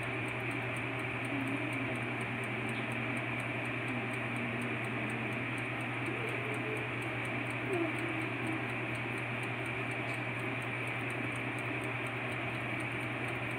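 Black & Decker EvenToast toaster oven baking with its heating element on: a steady low hum over an even hiss, with the timer ticking evenly.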